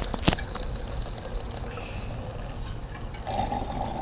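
Gasoline trickling from a fuel can into a lawnmower's fuel tank, with a sharp click about a third of a second in. A steadier tone joins the pour about three seconds in.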